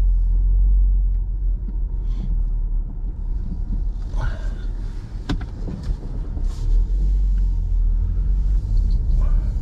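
A car's engine and tyres giving a steady deep rumble, heard from inside the cabin as the car is slowly turned around. It dips a little in the middle and rises again about seven seconds in, with one sharp click about five seconds in.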